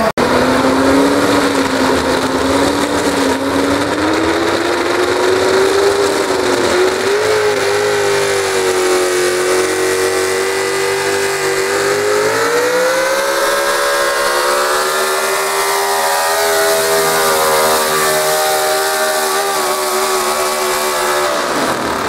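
Pulling truck's engine held at high revs as it drags a weight-transfer sled, its pitch climbing slowly, stepping up again about halfway through, then cutting off abruptly near the end.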